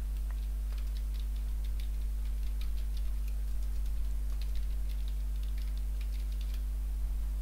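Computer keyboard typing: light, irregular keystrokes in short runs, over a steady low electrical hum.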